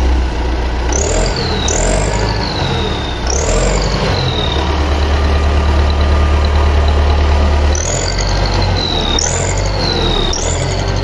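T-40 tractor's air-cooled diesel engine running steadily at idle. A high sliding chirp, rising then falling, repeats every second or two over it.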